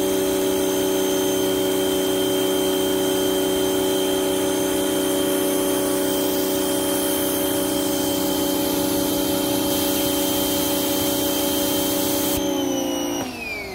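Giraffe Tools Grand Falls electric pressure washer running under load, spraying through a 15-degree tip: a loud, steady motor whine over the hiss of the spray. Near the end the spray hiss cuts off and the motor winds down, its pitch falling.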